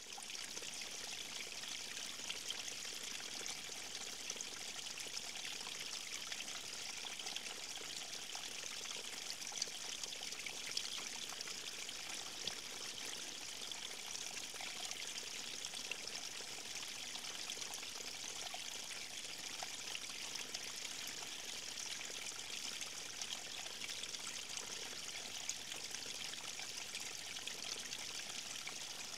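River stream flowing over stones: a steady bright rush of water with fine splashing and trickling throughout.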